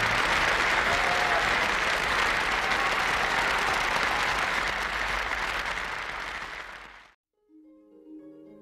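Studio audience applauding, fading and then cut off abruptly about seven seconds in. Soft plucked harp notes of the interval music follow near the end.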